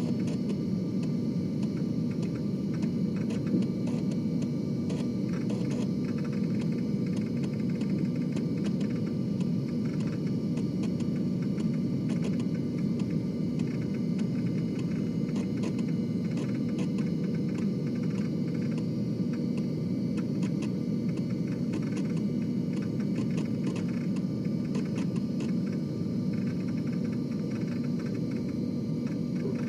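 Floppy disk drive running: a steady low whir with faint, irregular small clicks scattered through it.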